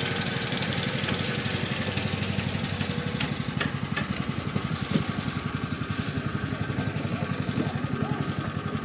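Small passenger boat's engine running steadily with a fast, even chugging beat, with one sharp knock about five seconds in.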